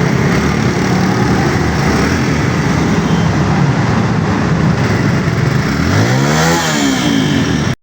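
Suzuki GS150's 150 cc single-cylinder four-stroke engine running under way, over steady wind and road rush. About six seconds in, the engine note rises and then falls again, and the sound cuts off abruptly near the end.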